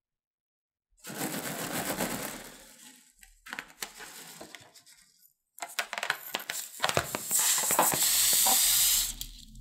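A slime-filled rubber balloon handled close to the microphone: bursts of rubbing and clicking. Near the end, scissors cut through the balloon's rubber neck with a loud crackling hiss lasting about two seconds.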